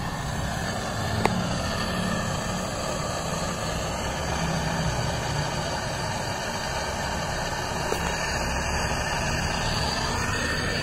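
High-pressure LPG torch burning steadily, a continuous rushing noise. A light click sounds about a second in.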